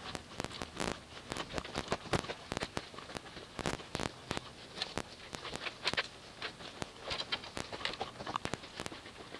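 Irregular soft clicks, rustling and patter from hand-washing with wet wash mitts and a bucket of Tide-detergent wash solution.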